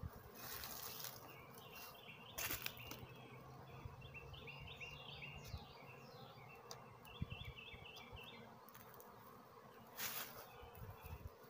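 Honeybees buzzing faintly around an open hive, while a songbird sings two runs of quick, short chirps. Wooden hive boxes knock sharply a few times as they are handled, loudest about two and a half seconds in and again near the end.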